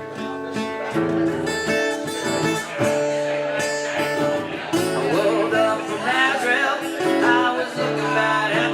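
Music: acoustic guitar strummed with band accompaniment in an instrumental passage of a song, with a wavering lead melody line coming in about halfway through.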